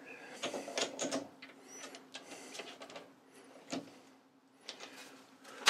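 Quiet metallic clicks and scrapes as a brake caliper guide pin is fitted into a lathe's three-jaw chuck and the jaws are closed on it, with a sharper click near the end. A faint steady hum runs underneath.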